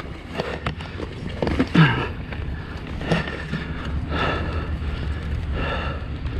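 Dirt bike engine idling with a low steady rumble, with scattered clunks and scuffs as the bike is handled on the trail.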